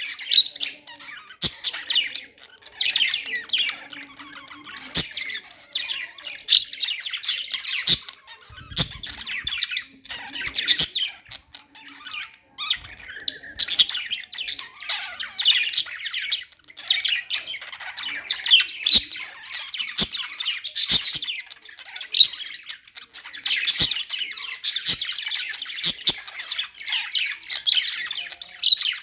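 Budgerigars chattering and warbling without pause, a dense stream of high chirps and squawks overlapping one another.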